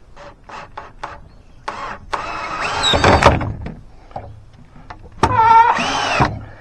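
Cordless power drill driving screws at an angle into wooden rafters (toenailing): a few light clicks, then two runs of the motor whining under load, the second a shorter whine that rises and falls.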